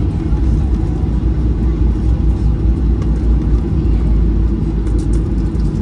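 Steady low rumble of a jet airliner's engines and airframe, heard from inside the cabin as the plane rolls along the runway.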